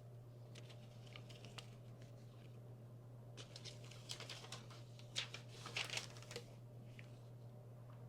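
Faint rustling of paper and plastic with light taps as a K-pop album's packaging and its paper inserts are handled. The handling is busiest from about three and a half to six and a half seconds in, over a low steady hum.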